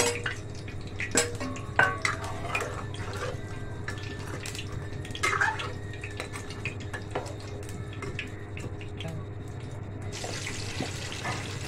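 A metal spoon clinking and scraping against a metal kadai as fried fish pieces are stirred into thick simmering curry, with wet sloshing of the gravy. Scattered sharp knocks, the loudest right at the start, over a steady low hum.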